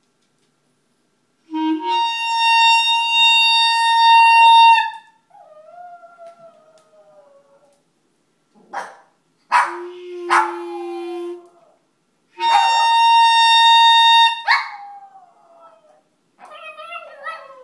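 A clarinet holds a long high note. A dog answers with falling howls and several sharp yips, then the clarinet holds the note again and the dog howls and whines once more.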